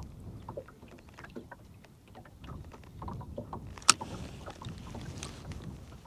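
Small waves lapping and slapping against the hull of a small boat, with wind rumbling on the microphone; a single sharp knock about four seconds in.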